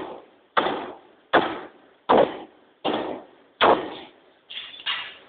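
40cwt Massey power hammer striking a red-hot stainless steel ring in steady blows about every three-quarters of a second, each blow fading quickly. Near the end two lighter blows come closer together.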